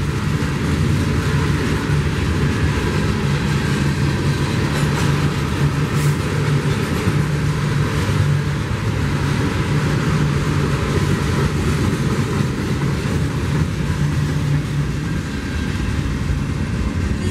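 Freight train of boxcars and tank cars rolling past at a grade crossing: steady wheel and rail noise, easing slightly as the last car clears near the end.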